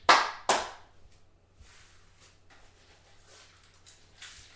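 Trading cards being handled: two sharp, quick snapping swishes about half a second apart, then faint light rustling and ticks of card handling.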